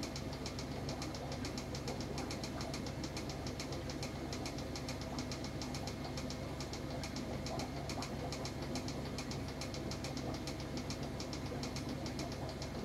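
Steady mechanical hum with a fast, even ticking of about five or six ticks a second, like a small motor or pump running.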